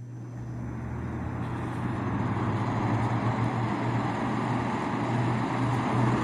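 1988 Emerson Quiet Kool 7600 BTU window air conditioner switched on: its fan spins up, the rush of air swelling over the first couple of seconds and then running steady over a low motor hum. It runs quiet.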